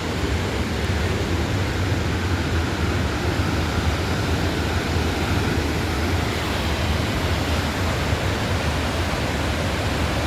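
Waterfall's steady rushing roar, the fast, muddy water pouring and crashing below, with a deep rumble underneath.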